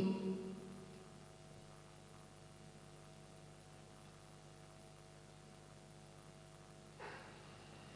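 A pause in the recitation: the last chanted note fades out over the first second, leaving a faint, steady electrical hum from the sound system. A short breath into the microphone comes about seven seconds in.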